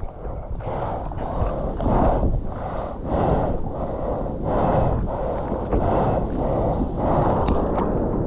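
Ocean surf and rushing water under heavy wind buffeting on the microphone, with a hissing surge about once a second over a constant low rumble.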